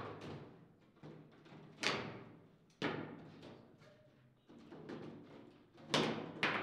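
Foosball table in play: sharp, irregular knocks about once a second as the ball is struck by the plastic men and the rods bang against the table, each knock ringing briefly, with two louder hits about two seconds in and near the end.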